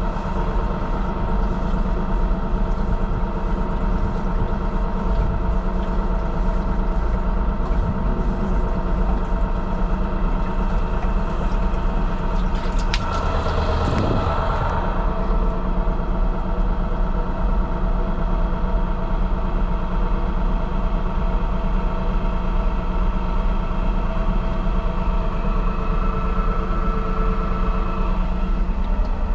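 Engine of a tow-behind high-pressure sewer jetter running steadily, with a brief rush of noise about halfway through.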